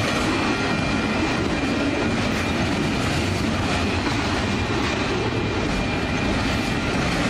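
Union Pacific double-stack container train's cars passing at speed, a steady rumble of wheels on rail.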